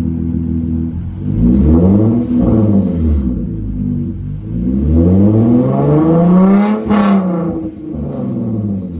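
Hyundai Genesis Coupe's 3.8 V6, straight through a freshly muffler-deleted exhaust, idling and then revved: a short blip about a second in, then a longer climbing rev that peaks near the seventh second and drops back to idle.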